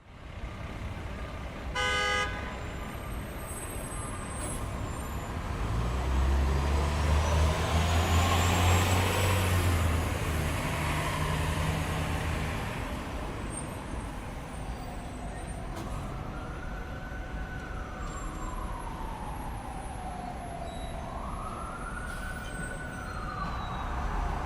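City street traffic: a car horn toots briefly about two seconds in, a heavy vehicle passes with a low engine rumble, and in the second half an ambulance siren wails in slow rising and falling sweeps over steady traffic noise.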